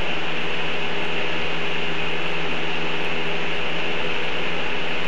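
Steady hiss with a constant low hum, unchanging throughout.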